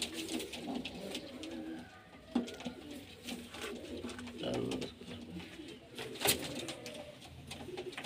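Several domestic pigeons cooing continuously, with a couple of sharp knocks, the louder one about six seconds in.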